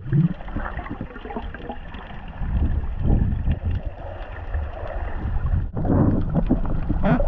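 Muffled underwater water noise picked up by a GoPro on a freediver's dive light: a low churning rumble from the diver's movement through the water, with scattered light clicks and knocks, louder about three seconds in and again near the end.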